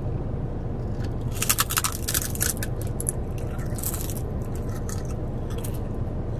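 Biting and chewing a sheet of crisp, kimchi-flavoured grilled seaweed. It gives brittle, crackly crunches, a cluster starting about a second in, another near four seconds and a faint one near the end.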